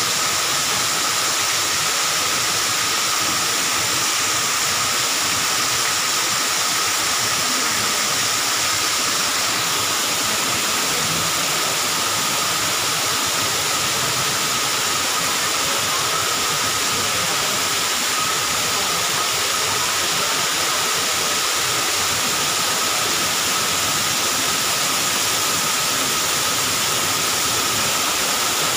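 Small waterfall pouring down a rock face and splashing into a shallow pool: a steady, unbroken rush of water.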